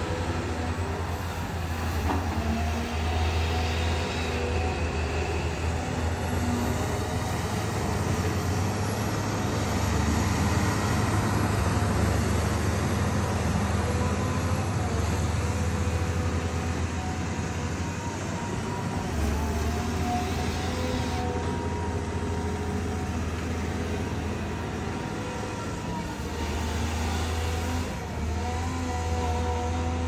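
Caterpillar hydraulic excavator's diesel engine running as it digs: a steady low drone that swells and eases a little, with faint whining tones over it.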